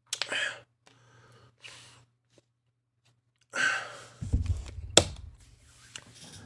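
Breathy exhales or sighs from a person, then a run of low thumps with one sharp knock about five seconds in.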